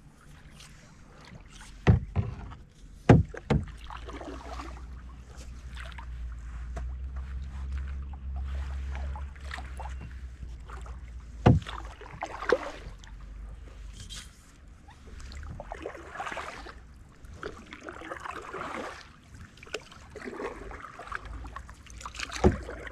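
Canoe paddle strokes, the blade swishing and splashing through the water every few seconds, with a few sharp knocks of the aluminium paddle shaft against the canoe. A low rumble, strongest in the middle, sits under the strokes.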